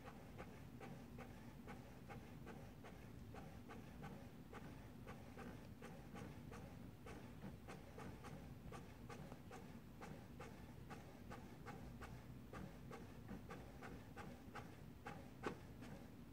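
All-in-one printer working, with faint, quick, fairly even ticking and clicking of its paper feed and print mechanism over a low hum, and one louder click near the end.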